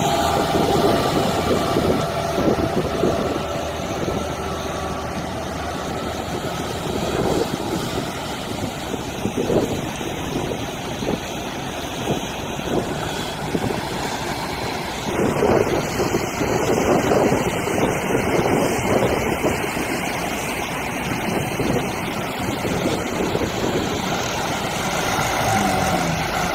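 Farm tractor's diesel engine working steadily under load as it hauls a boat trailer up out of the surf through wet sand, with waves washing and wind buffeting the microphone.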